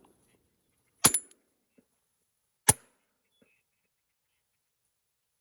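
Two shotgun shots about a second and a half apart, each a sharp, short crack.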